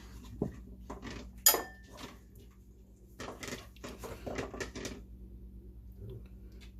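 Kitchen dishes and utensils clattering and clinking, with one sharp ringing clink about a second and a half in and a run of rattling knocks a little past three seconds in.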